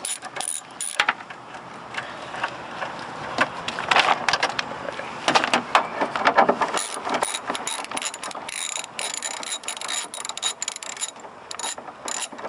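Socket ratchet with a 10 mm socket clicking in several quick runs while loosening the bolts that hold a car door's window glass.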